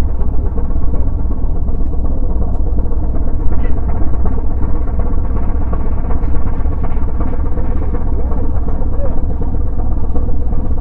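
Strong wind buffeting the microphone: a loud, steady rumble that doesn't let up.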